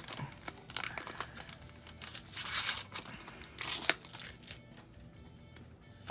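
Foil Pokémon booster pack wrapper being torn open and crinkled, in a few short rustling bursts.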